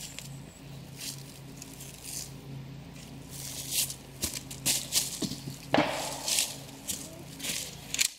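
Rustling and crackling of squash vines and leaves being handled and pulled, a run of short crisp brushes with a louder one a little under six seconds in. A steady low hum runs underneath.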